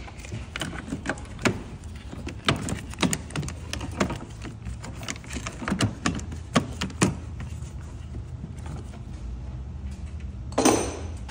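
Hand tools and metal parts clinking and knocking during work on a car's front strut, in quick, irregular clicks over the first several seconds. A louder clank comes near the end.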